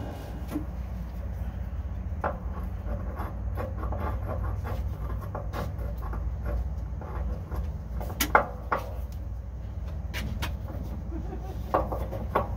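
Scattered light clicks and knocks as a polyurethane Sumo Springs bumper is handled and pushed up into place against its steel bracket under the chassis, the sharpest knock about eight seconds in, over a steady low rumble.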